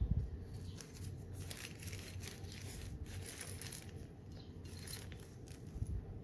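Plastic packaging crinkling and crackling as it is handled, in a run of short crackles through the middle. A dull knock comes at the start and another near the end.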